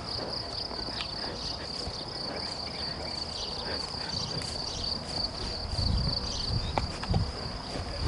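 Crickets trilling steadily in a grassy meadow, one unbroken high-pitched note, over a low rumble with a few soft low thumps a little past the middle.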